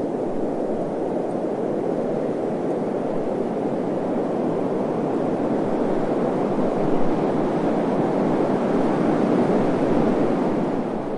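Desert wind blowing: a steady rushing noise that swells a little in the second half.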